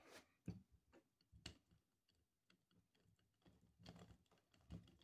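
Near silence broken by faint scattered clicks and ticks as a small Torx T8 screwdriver turns a screw out of the plastic battery-latch trim of a Baofeng UV-5 radio. A few come in the first second and a half, and a few more near the end.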